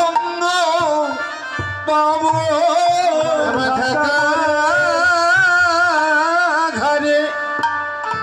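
Male kirtan singer singing devotional Bengali song into a microphone, with a long wavering held line through the middle that breaks off about seven seconds in, over soft hand-drum beats.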